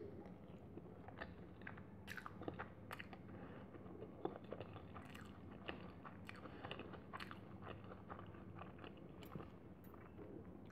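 Close-miked chewing and mouth sounds of a person eating a curry-coated boiled egg by hand, with irregular wet smacks and clicks.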